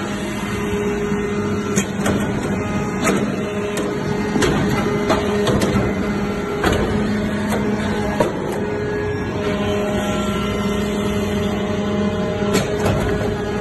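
Hydraulic metal-chip briquetting press running: a steady hum from its hydraulic power unit, with irregular sharp clicks and knocks as the press works.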